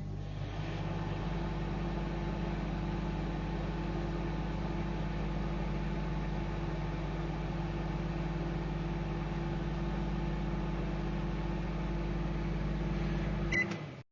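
Microwave oven running: a steady low electrical hum with the whirr of its fan and turntable. It stops suddenly near the end with a short beep.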